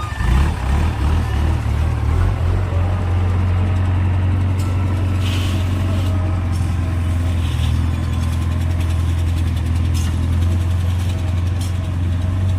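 JCB 3DX backhoe loader's diesel engine running, uneven for the first couple of seconds and then at a steady speed, with a few short knocks and clatters over it.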